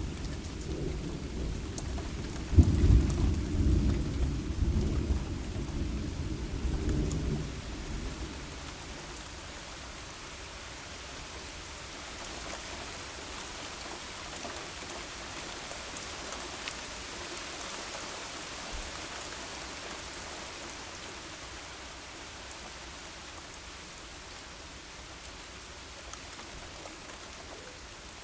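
Heavy rain falling steadily while a long roll of thunder rumbles, loudest with a sharp crack about two and a half seconds in and fading out by about eight seconds; after that only the rain goes on.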